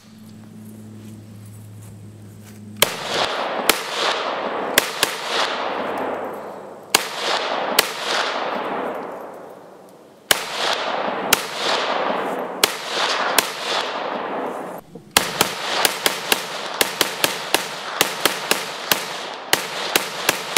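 FSN-01 semi-automatic rifle firing: after a few quiet seconds, single shots roughly a second or more apart, then a fast string of about two to three shots a second over the last several seconds. Each shot rings out with a long echo.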